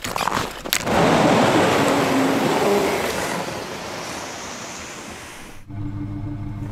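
A vehicle pulls away towing a sled loaded with firewood over snow: a loud rushing noise that fades slowly over several seconds. Near the end it cuts off and background music with steady low tones begins.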